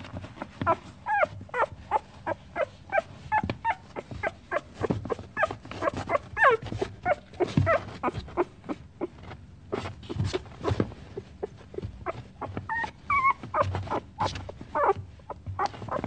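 A dog whining and whimpering in a rapid series of short cries, several a second, some bending up and down in pitch.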